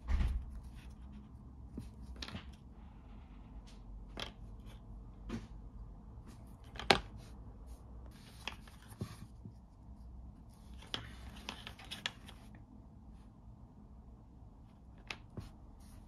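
Small leather pieces and a wooden edge burnisher handled and set down on a cutting mat: scattered light taps and clicks, a low bump at the start and a sharp click about seven seconds in, with brief rustling and sliding around eight and eleven seconds in.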